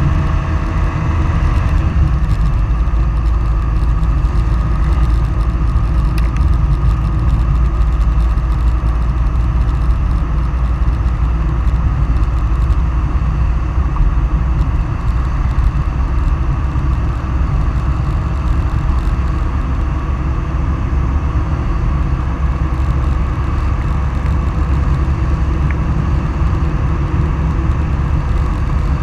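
Steady, loud rumble of fast travel down an asphalt road, with wind buffeting the microphone.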